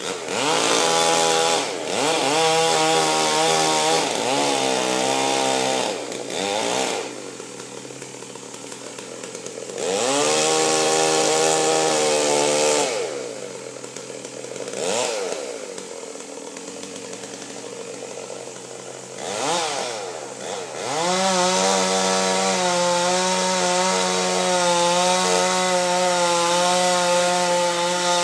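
Chainsaw cutting wood to fell a tree. It is run at full throttle in long bursts, with drops back to idle and two brief blips between them, and the last burst is held steady from about three quarters of the way in.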